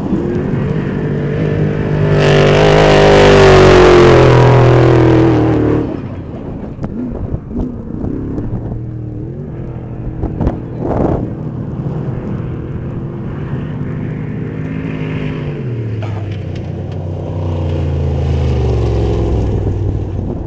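Off-road racing trophy truck engines at full throttle as trucks race close past. The loudest pass comes about two to six seconds in, the engine note climbing under a loud rush of noise. Engines keep running high afterwards, with the note dropping and then rising again as another truck comes through near the end.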